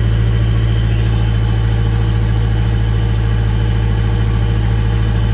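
Mitsubishi Triton 2.8 turbo-diesel engine idling steadily, close up, with no bearing knock to be heard. This is despite the oil light staying on when warm, which the owner puts down to a faulty oil pressure switch.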